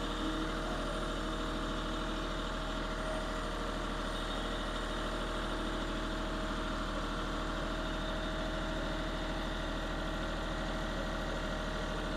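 Kioti CK4020 compact tractor's diesel engine running at a steady, even speed while the tractor creeps forward with its pallet forks.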